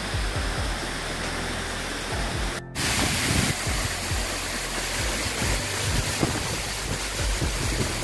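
Waterfall's steady rush of falling water. It drops out for a moment just under three seconds in and comes back brighter.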